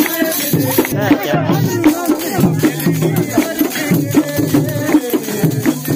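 Folk dance music with a fast, even, rattling percussion beat over a pitched melody.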